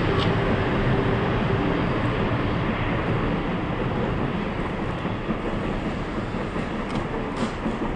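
A 500 Series Shinkansen trainset running past and pulling away, its rumble and wheel noise slowly fading. A faint steady hum dies out after about two seconds, and a few light clicks come near the end.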